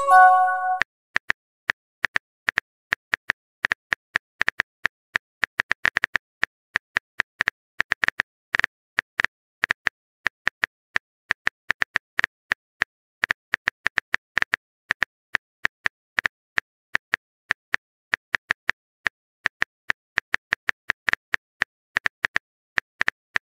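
Simulated phone-keyboard typing sounds from a texting-story app: rapid, irregular key clicks, several a second, each a short bright tick. A short chime of a few notes sounds right at the start.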